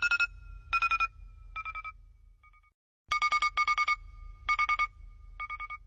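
Electronic telephone ringtone trilling in short repeated bursts that fade away, then start again about three seconds in and fade once more.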